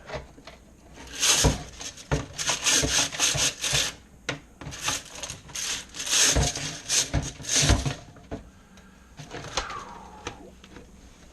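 Brush scrubbing inside a dryer vent duct, making repeated scraping, rubbing strokes in bursts with a few knocks, then easing off about eight seconds in.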